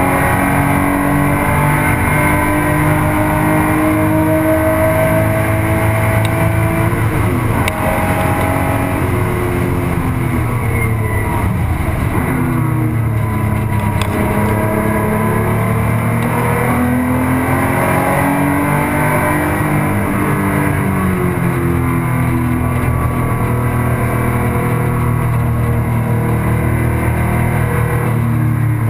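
Porsche 911's air-cooled flat-six engine heard from inside the cockpit at racing speed. The revs climb under acceleration, break at gear changes and fall on braking into corners several times over.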